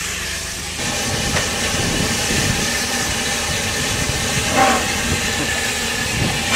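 Steam locomotive standing at the platform, hissing steam steadily from about a second in, with a couple of brief knocks.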